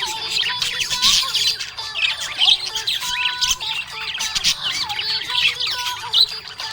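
Budgerigars chirping and chattering without pause, many quick overlapping squawks and warbles, with a few held tones beneath.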